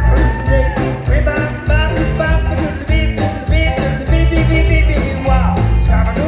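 Live rock band playing with a steady beat: drums, bass and electric guitar.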